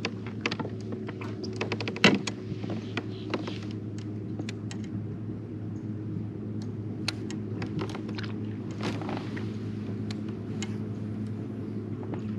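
Electric trolling motor of an Old Town AutoPilot 136 kayak humming steadily, driving the boat along. Scattered clicks and knocks ride over the hum, the loudest about two seconds in.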